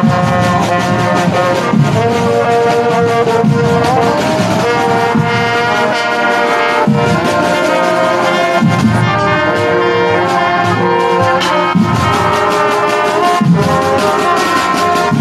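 High school marching band's horn line (trumpets, saxophones and low brass) playing a tune together in harmony, loud and steady, with sharp drum hits under it.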